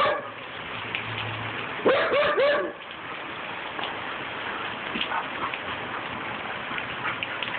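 Young Siberian husky giving three quick barks about two seconds in, over a steady patter of rain on the deck.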